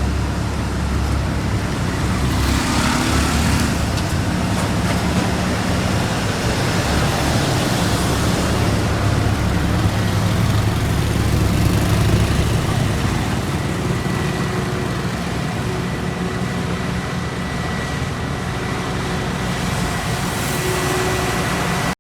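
Engines of heavy asphalt-paving machinery running steadily with a low rumble. The rumble eases off about halfway through, and a faint steady whine comes in during the second half.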